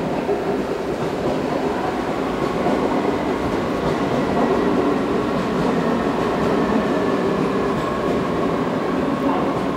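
Red DB S-Bahn electric train moving through the station: a steady rumble of wheels on rail, with a faint steady whine above it.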